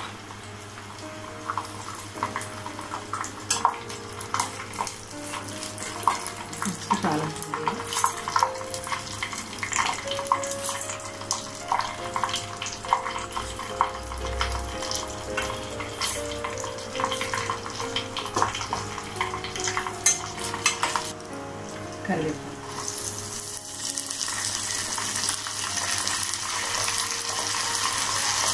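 Tempering frying in hot oil in a small steel pan: mustard seeds, dals and dried red chillies crackling with many irregular sharp pops. Near the end, after curry leaves go into the oil, it turns into a steady, louder hissing sizzle.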